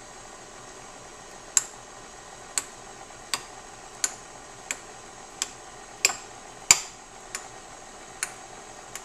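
KitchenAid stand mixer running with a steady motor hum while its flat beater beats butter in the stainless steel bowl, ticking sharply against the bowl at a regular beat of about one tick every two-thirds of a second.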